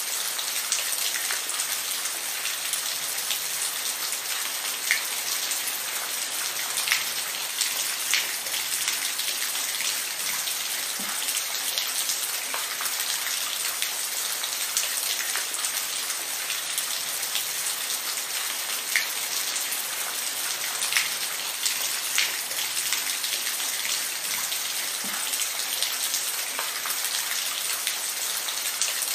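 Steady rainfall: a constant hiss of rain with scattered louder drops ticking close by.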